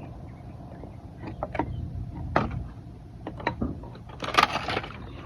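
Scattered knocks and clicks from objects being shifted by hand, with a louder scraping rustle about four seconds in.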